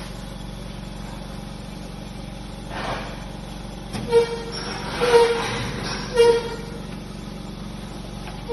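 Mini spray dryer setup running with a steady machine hum. In the second half, three short loud tones sound over the hum.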